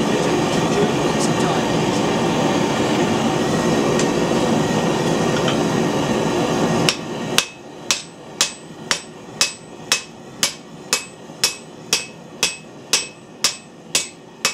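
A steady rushing noise runs for about seven seconds and cuts off suddenly. Then a hand hammer strikes yellow-hot carbon steel on a 45 kg anvil in an even rhythm of about two ringing blows a second, drawing out a forging.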